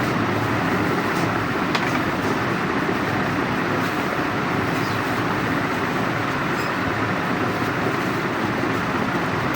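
Handheld percussion massage gun running steadily.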